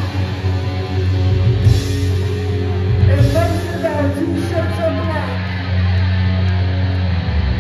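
A hardcore punk band playing loud and live, with electric guitar, bass and drums.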